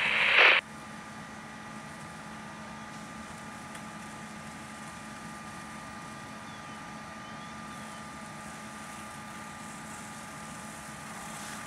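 A faint, steady mechanical hum with a few held tones, from fire apparatus engines running at a fire scene. It starts as a loud burst of radio static cuts off about half a second in, and another radio transmission breaks in at the very end.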